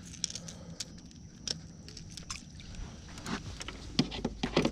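Scattered light clicks and knocks in a small boat, several in quick succession near the end, over a low steady rumble.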